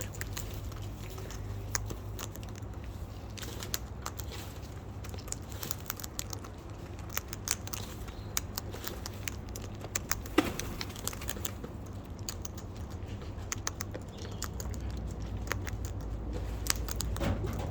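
Irregular small clicks and crackles of cockatoos cracking and chewing peanuts in their beaks, over a steady low hum, with one short voice-like sound about ten seconds in.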